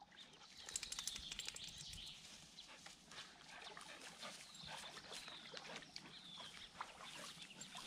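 Faint rustling and crackling as a husky-type dog pushes through tall grass and undergrowth, with a few short high chirps.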